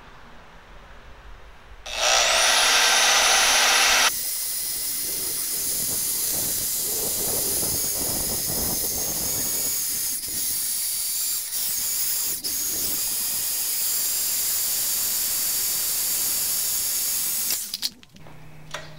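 Portable band saw cutting through a steel round bar. It starts about two seconds in with a rising whine and is loudest for the next couple of seconds. It then runs steadily as the blade works through the bar, and stops near the end.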